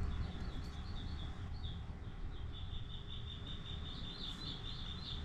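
A small songbird singing fast runs of short, high chirps, thickening into a rapid trill about halfway through, over a low steady rumble.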